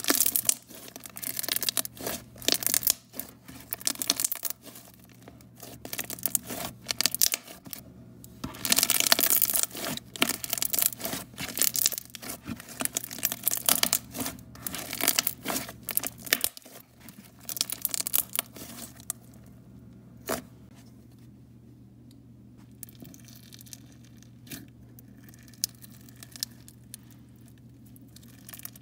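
Thick pink slime being squeezed and kneaded by hand, giving a dense run of sharp crackling pops and squishes. After about two thirds of the way through it thins out to faint, scattered clicks.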